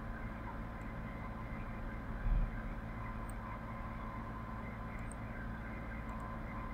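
Steady low electrical hum with hiss, with a brief low thump about two seconds in and a few faint clicks.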